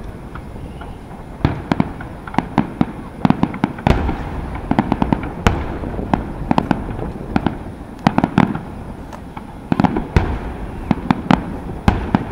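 Aerial firework shells bursting: a rapid, irregular run of sharp bangs and crackles, with heavier low booms about four, eight and ten seconds in.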